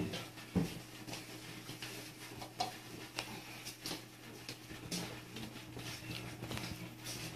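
Cats crunching dry kibble from small plates on the floor: irregular small crunches and clicks, over a steady low hum.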